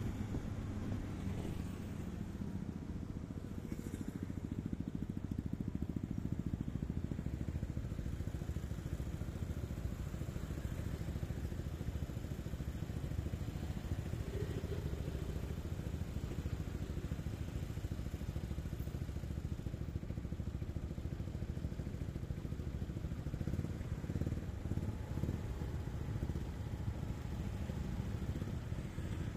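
Motor scooters and motorbikes in city traffic: engines running, at first on the move, then idling in a queue of stopped traffic with a steady low rumble.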